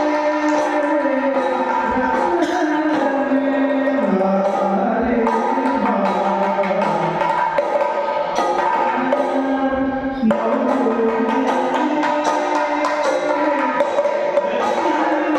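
Indian classical-style music: a held melodic line stepping between notes over steady drum strokes.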